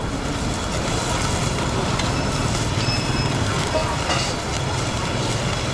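Steady roar of gas burners with beef sizzling in cast-iron skillets.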